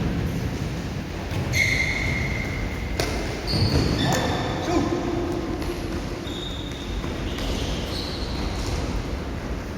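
Indoor futsal play: shoes squeaking briefly on the court floor several times and a ball knocked once about three seconds in, echoing in a large hall.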